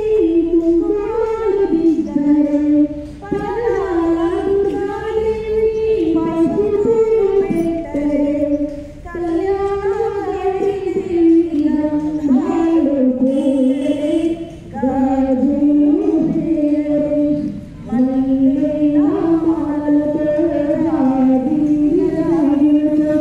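A woman singing a song unaccompanied, in sustained melodic phrases of several seconds with short breaks between.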